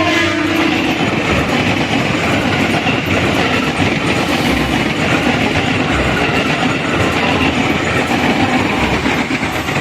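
A KRL electric commuter train passing at speed, a loud steady rush of wheel-on-rail noise. A brief steady tone fades out about a second in.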